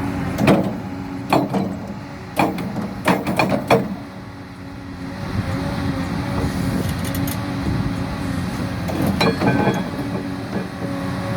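Excavator's diesel engine running steadily under a scattered series of sharp hammer knocks from its hydraulic breaker. The knocks come irregularly, a handful in the first four seconds and a few more later, rather than in a fast steady run. The owner takes this for poor breaker performance, with the fault in either the breaker or the excavator.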